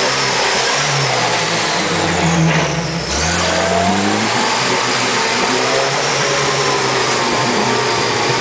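UAZ-469-type off-roader's engine revved hard, its pitch rising and falling several times as the wheels spin and churn in deep mud, over a loud hiss of splashing mud.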